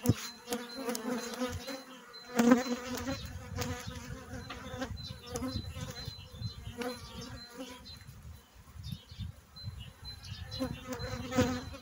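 Honeybees buzzing over an open hive, with individual bees' hum rising and falling as they fly past the microphone. A few sharp clicks are heard over the buzz.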